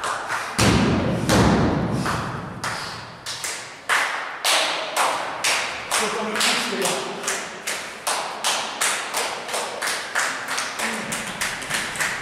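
A heavy thud, then a long run of evenly spaced thumps, about two to three a second and speeding up slightly, with a ringing echo after each.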